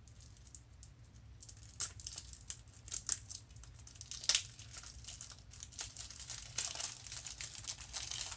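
Plastic shrink-wrap on a boxed tarot card deck being torn and crinkled off by hand, in irregular crackles with a few sharper, louder snaps.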